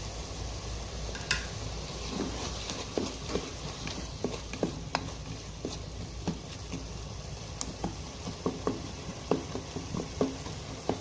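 Onions and tomato frying in oil in a pan, a steady sizzle, stirred with a spoon that clicks and scrapes against the pan at irregular intervals.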